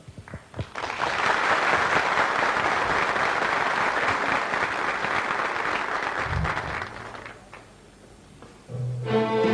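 Studio audience applauding for about six seconds, then dying away. Near the end an orchestra with bowed strings starts up: the introduction to a Turkish art music song.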